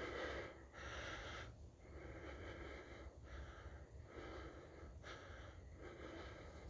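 A man breathing hard and out of breath, a steady run of quick breaths in and out, faint.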